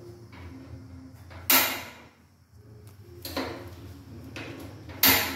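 Kitchen clatter at the stove: three sharp knocks about two seconds apart, with a couple of softer ones between the last two, over a low steady hum.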